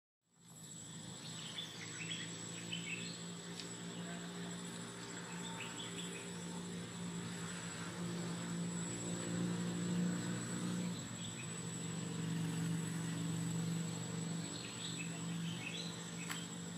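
Outdoor ambience: a steady high-pitched insect whine with scattered bird chirps, bunched in the first few seconds and again near the end, over a low steady motor-like hum.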